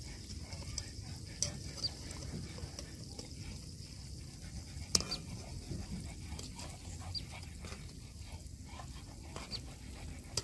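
Dal pakoras deep-frying in hot oil in a wide metal karai: a steady sizzle with scattered crackling pops, and one sharper click about five seconds in.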